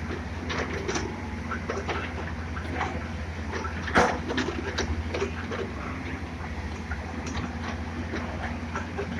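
JCB excavator's diesel engine running steadily at work, with scattered clanks and knocks from the machine, one louder knock about four seconds in.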